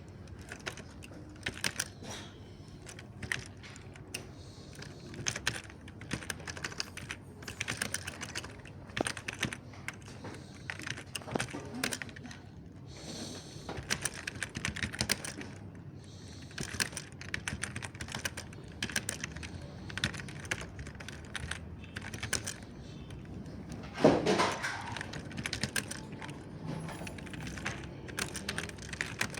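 Soft mechanical keyboard being typed on, with fast runs of key clicks broken by short pauses. One louder, lower thump about three-quarters of the way through.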